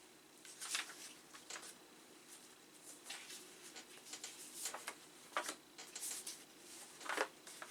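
Faint, scattered rustles and light taps of paper and cardboard being handled: a boxed software package's manual and leaflets being sorted and packed back into the box.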